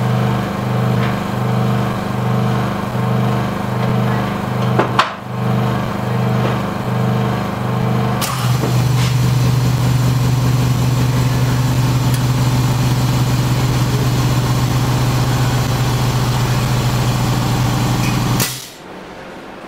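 Vacuum OCA laminating machine running, a loud motor hum that pulses about one and a half times a second. A sharp click comes about five seconds in and another about eight seconds in, after which the hum goes steady. It cuts off suddenly near the end.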